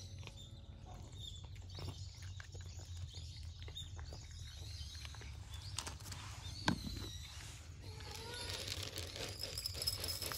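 Stray cats: scattered soft clicks, one sharper click about two-thirds of the way through, and faint meowing near the end.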